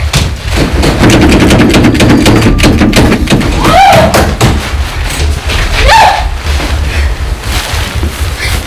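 Chase-scene sound mix: a deep pulsing rumble underneath, a quick run of sharp knocks or footfalls about a second in, and a woman crying out twice, rising then falling in pitch, about four and six seconds in.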